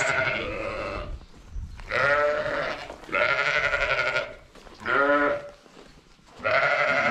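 Ewes bleating: five loud, quavering calls in a row with short gaps between them, calling to be fed.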